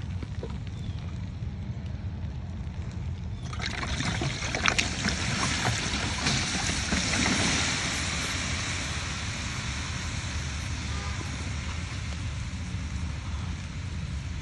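Oxtails sizzling and crackling on a hot charcoal grill. About three seconds in, the sizzle jumps to a loud hiss with sharp pops, then eases off slowly. A steady low rumble runs underneath.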